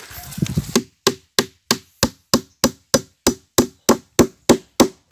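Claw hammer striking wood in quick, even blows, about three a second, starting about a second in.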